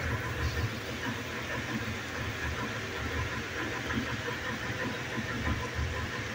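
Thick chana dal fry bubbling and popping in a pan on a gas stove, with small pops scattered over a steady low rumble.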